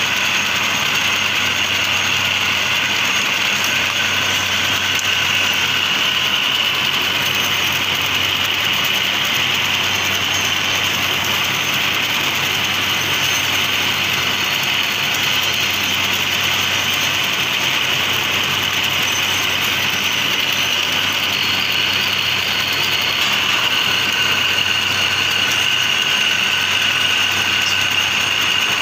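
Steady drone of running machinery, with a high whine over a low hum and no breaks.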